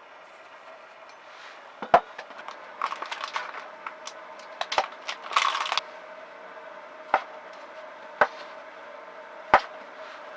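Sharp knocks and clatter of objects being handled, a few single hard knocks with a busier stretch of clatter and rustling in the middle, over a faint steady hum.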